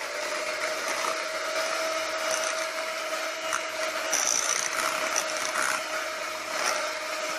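Electric hand mixer running steadily, its beaters turning through thick cake batter as flour is mixed in, with a constant motor whine.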